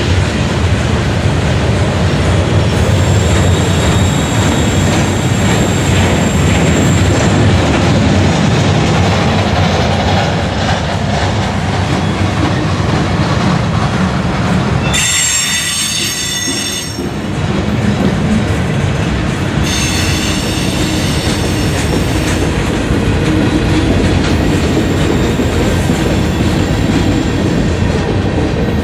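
Freight cars of a manifest train rolling past close by, with a loud, steady rumble of wheels on rail. High-pitched wheel squeals come and go, the strongest about halfway through.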